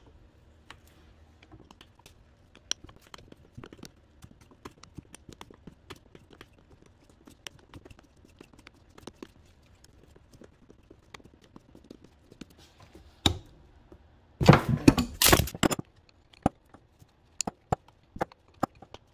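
Small steel wrench clicking and ticking against the hydraulic line fittings as the lines are worked loose from a power steering rack. About two-thirds of the way through comes a knock, then a louder clatter of metal tools and fittings.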